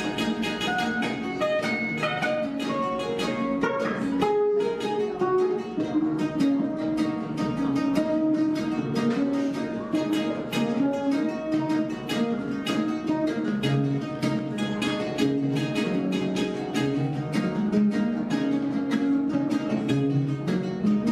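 Guitar and kenora, an ancestral plucked string instrument, improvising together in a stream of quick plucked notes.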